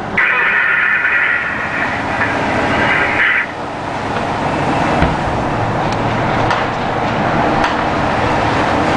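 Steady engine and road noise of a moving convoy truck, heard from inside the cab. A hiss sits over it for the first three seconds or so, and a few faint knocks come in the second half.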